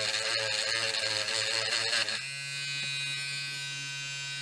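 Small electric grinder with a wire brush running, its tone wavering as the brush scrubs oxide off a door-lock part. About two seconds in it comes off the work and spins freely at a steady pitch.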